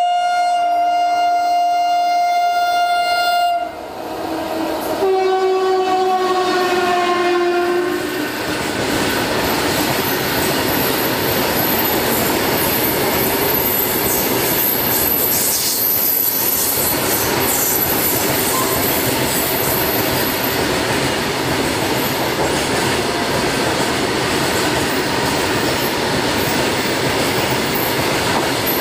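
Locomotive horn of a passing freight train: two long blasts, the second sliding slightly down in pitch. Then the continuous running noise of a long rake of covered boxcar wagons rushing past at speed, wheels on rails.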